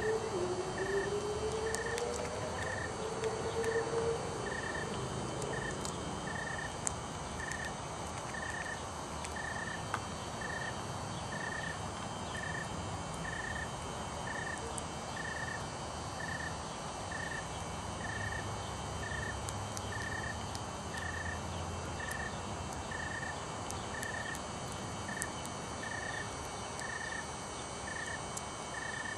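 A cricket chirping steadily, a little more than once a second, over a steady outdoor hiss. A low hum rises in pitch over the first few seconds.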